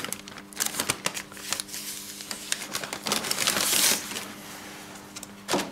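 Masking paper and tape being handled and pressed onto a scooter body: paper rustling and crinkling with quick small clicks and taps, and a longer rasping stretch from about three to four seconds in, over a faint steady hum.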